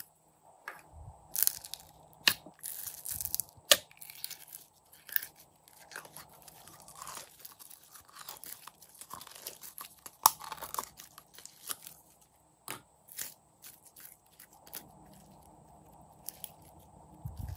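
Clear pink glitter slime being squeezed out of its plastic jar and squished between the hands: irregular sticky clicks, pops and squelches, with a few louder sharp clicks.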